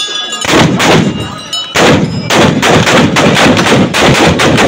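A ragged volley of many black-powder guns going off together, shot after shot overlapping continuously from about half a second in.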